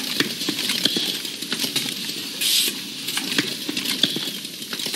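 Automated watch-movement assembly machinery running: a rapid, irregular stream of small mechanical clicks and ticks over a steady hiss, with a few brief louder hissing surges.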